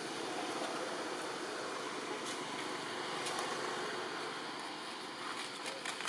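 Steady forest background noise: an even hiss with a faint high steady tone running through it, and a few faint clicks near the end.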